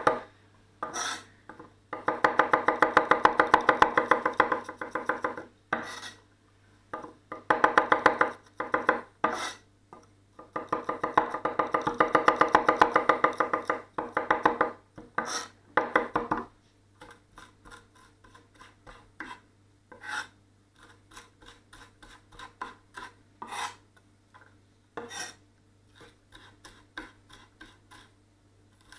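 A 230 mm forged carbon-steel gyuto rock-chopping garlic on a wooden board, its edge tapping the wood in fast, even runs. Three long runs of a few seconds each come in the first half, with short flurries between. From about midway the taps turn lighter and scattered, with scraping as the minced garlic is gathered with the blade.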